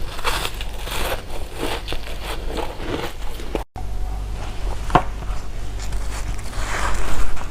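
Close-miked chewing and biting of candy and jelly, wet crunching and smacking in quick repeated bursts over a steady low hum. The sound cuts out for a moment about halfway. After that come sparser sharp clicks and a louder stretch of chewing near the end.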